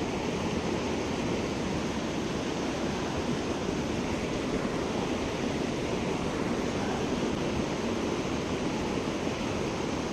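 Steady rushing water of a mountain creek, an even unbroken wash with no distinct splashes or knocks.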